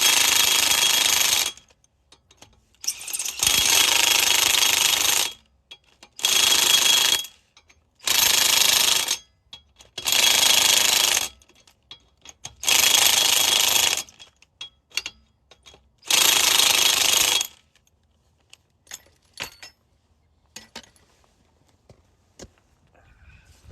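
Impact wrench hammering in seven short bursts, each one to two seconds long, running the lug nuts onto a spare wheel. A few light clicks and knocks follow near the end.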